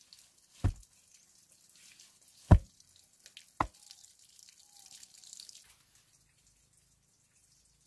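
Three dull thumps of a flat stone slab being set into packed soil and stamped down underfoot, followed by faint scuffing of dirt.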